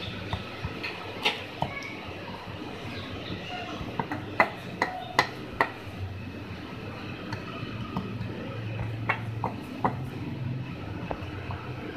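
Wooden rolling pin rolling out puri dough on a wooden board: scattered clacks and taps of wood on wood, with a cluster of four sharp knocks about four to six seconds in and a few more near the end. A low steady hum sits in the background.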